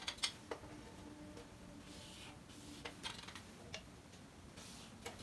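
Marker drawing lines along a ruler on a whiteboard: short scratchy strokes of the marker tip, with light clicks and taps as the ruler and marker touch the board, several close together at the start.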